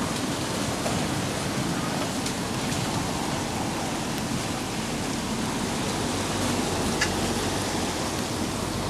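Steady rain falling, an even hiss, with a single sharp tick about seven seconds in.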